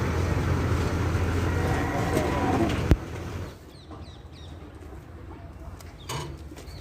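A diesel engine runs steadily, then a single sharp knock comes about three seconds in and the engine sound drops away. Birds chirp in the quieter second half.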